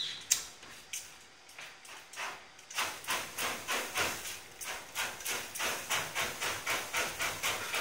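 A few sharp clicks of a lighter, then from about three seconds in a steady run of short hissing whooshes, about three a second: puffs of aerosol spray igniting in the lighter flame as an improvised torch to flambé meringue.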